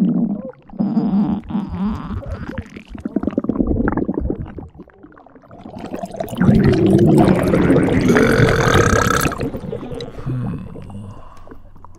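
Sound-effect stomach gurgling and rumbling for a cartoon badger's huge swollen belly: a run of low, wobbling gurgles, a short lull, then a louder, longer rumble of about three seconds, followed by fainter gurgles.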